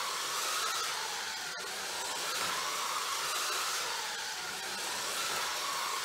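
Scalextric slot car from the Mini Mayhem set (a Mini Cooper) running round the track: a steady whirring electric-motor whine that swells and fades as the car laps, with a brief cut-out about one and a half seconds in.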